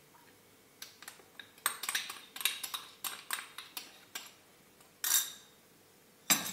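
Metal spoon clinking and tapping against a bowl and a wire sieve while scooping flour, a quick run of light taps over a few seconds. A short brushing sound follows, then one sharp knock near the end.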